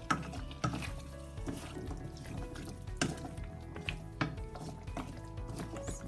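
Spatula stirring vegetables and pork in a stainless steel pan, scraping with a few sharp knocks against the metal, over soft background music.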